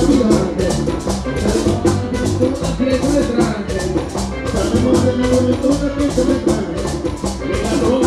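Live bachata band playing: guitar and keyboard over a tambora drum, with a steady high shaking or scraping beat from hand percussion.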